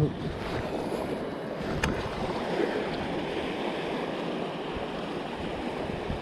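Wind buffeting the microphone over choppy lake water, with waves lapping, and one sharp click about two seconds in.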